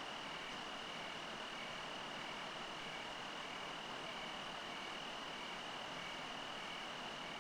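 Crickets chirping at night: one steady high trill, with a second, lower chirp repeating about every half second.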